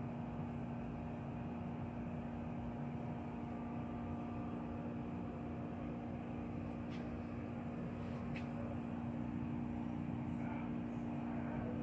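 A steady low mechanical hum over even background noise, with a couple of faint ticks.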